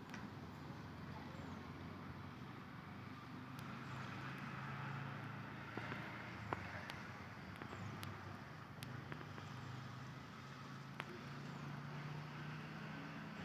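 Electric multiple unit (EMU) local train running as it crosses from one line to another, heard faintly: a low steady hum with a handful of sharp clicks scattered through.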